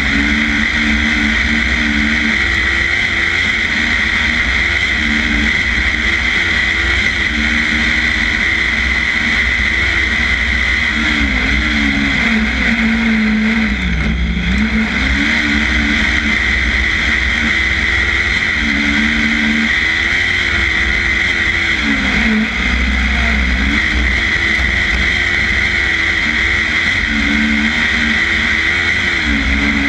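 A 500-class cross kart's engine heard from inside its cockpit, running hard at high revs through a race. The pitch drops briefly as the driver lifts off for corners about 14 and 22 seconds in, then climbs again as he accelerates.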